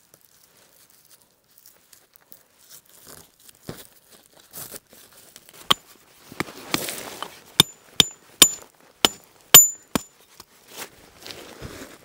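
About seven sharp strikes with a short metallic ring, a little under two a second, in the second half: a metal tent stake being hammered into stony ground. A few faint crunches of gravel come first, and a brief rustle sits among the strikes.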